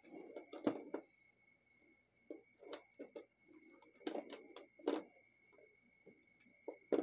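Fingers handling the paper page of a junk journal: scattered soft taps and rustles of paper, bunched about a second in, around four to five seconds in, and near the end.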